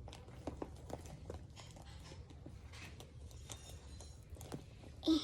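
Small clicks and scratches of fingers picking and pulling at a cardboard mystery box that is hard to open, with a brief louder sound just before the end.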